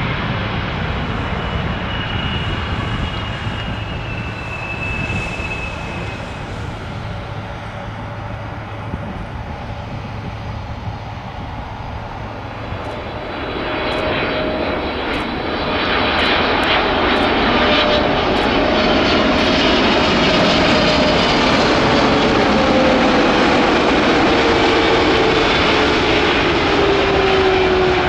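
Jet engines of Boeing 777-200F freighters landing. Engine noise eases off over the first half, then about halfway through another 777-200F's engines grow loud and stay loud, with a whine that slides down in pitch as it passes.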